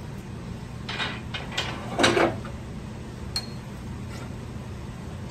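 Metal clunks and scrapes from handling a wood lathe's tool rest: several knocks in the first couple of seconds, the loudest about two seconds in, then a lighter knock with a short metallic ping. A steady low hum runs underneath.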